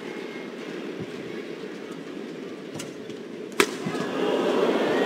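Badminton rally: racket strokes on the shuttlecock, two faint ones and then one sharp, loud hit about three and a half seconds in, over a steady arena crowd murmur that swells after the loud hit.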